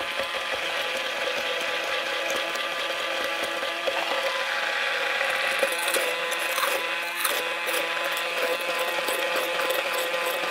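Immersion (stick) blender motor running steadily with an even whine, pureeing a thick sauce with chunks of ginger and garlic in it. From about six seconds in, a rapid ticking joins the motor sound.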